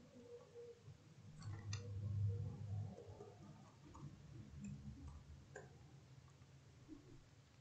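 Faint computer keyboard typing: a few scattered keystroke clicks. A low rumble swells up about a second and a half in and dies away near the three-second mark.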